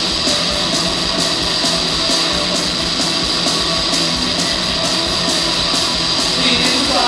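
Post-punk band playing live: electric guitar, bass guitar and drums in a steady driving rhythm, with no vocals.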